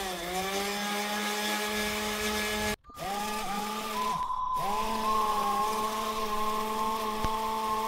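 Electric orbital sander running on an aluminum alloy wheel to strip its peeling clear coat. Its motor whine sags in pitch each time it is pressed onto the metal. The sound breaks off briefly a little before the middle.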